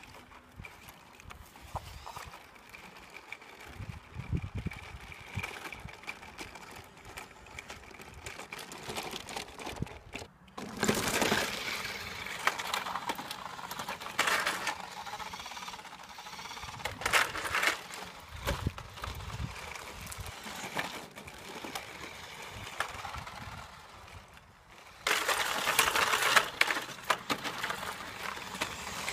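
Battery-powered radio-controlled toy monster truck driving over paving stones and concrete: its electric motor whining and its plastic body and wheels rattling, with louder stretches about eleven seconds in and again near the end.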